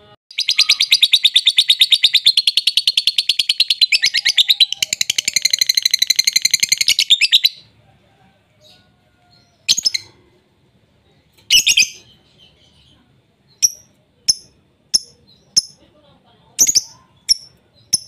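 Lovebird singing a long, fast rattling trill for about seven seconds, the call birdkeepers call ngekek. After a pause it gives single short, sharp chirps, coming about once a second near the end.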